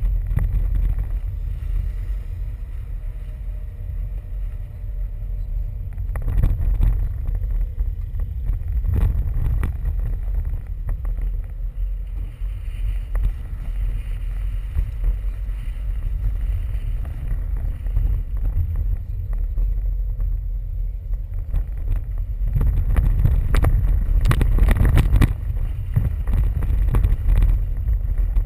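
Low, steady rumble of a car driving slowly through town, picked up by a camera mounted on its bonnet, with wind buffeting the microphone. It has a few louder gusts, the strongest near the end.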